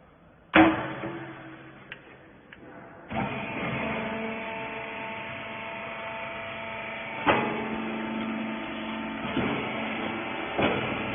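A sharp metallic bang, then a baler machine's motor starts about three seconds in and runs steadily with a hum of several tones, with a few clanks as it works.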